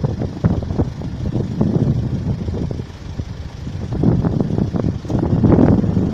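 Wind buffeting the microphone: an uneven, gusty low rumble that swells louder about four seconds in and peaks near the end.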